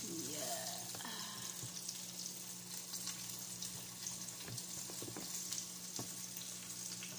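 Cooking oil heating in a pan, a steady sizzling hiss under a low hum. A few short clicks and knocks come from the plastic blender jar as its lid is twisted open.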